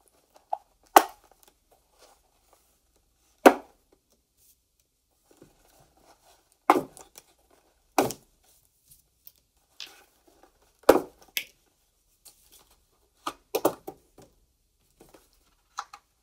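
Caps being pulled off felt-tip markers one at a time, each coming off with a sharp pop, about ten in all at uneven intervals, with light handling of the cardboard box the markers are pushed through.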